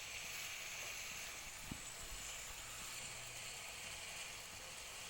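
Chicken and eggplant sizzling steadily as they stir-fry in a hot pan, with a single light knock about a second and a half in.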